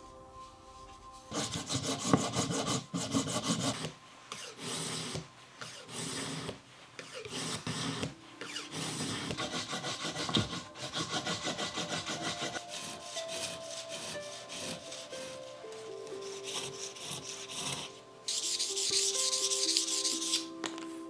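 Quick back-and-forth scrubbing strokes, several a second, on a thin bamboo rod section worked with a small stiff brush against a wooden block. Near the end comes a faster, hissier rubbing as the rod is rubbed with a cloth. Soft music plays underneath.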